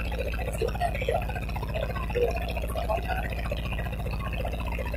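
Boat engine running at a steady low drone, with voices talking over it.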